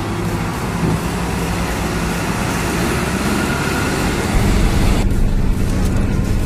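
Nissan Diesel CWA 260 tanker truck's diesel engine running while driving, with road noise. About four seconds in, the low engine hum grows stronger and the higher hiss drops away.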